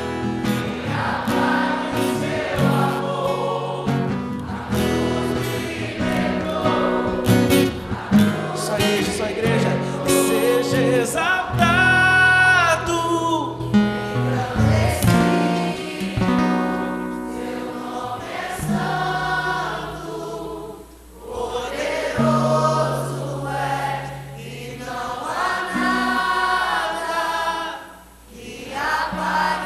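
A live worship band and congregation singing a Portuguese-language praise song together, with lead vocals over guitars, bass, keyboard and drums. The music drops briefly quieter twice in the second half.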